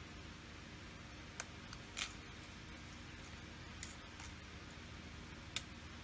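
A craft-knife blade cutting a photo-etched metal part from its fret: about six short, sharp clicks, the loudest about two seconds in and near the end.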